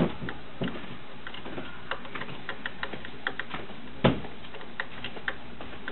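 Irregular small clicks and taps of hands working at a sewing machine, with a louder knock about four seconds in.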